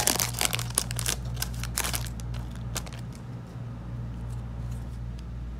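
Plastic foil booster-pack wrapper crinkling as trading cards are slid out of it, the crackling dense for about two seconds and then thinning to occasional light rustles of card handling. A steady low hum runs underneath.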